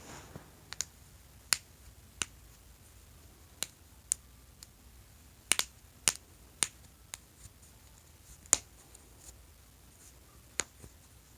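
A person's joints cracking during self-adjustment: more than a dozen sharp pops at irregular intervals, some in quick pairs.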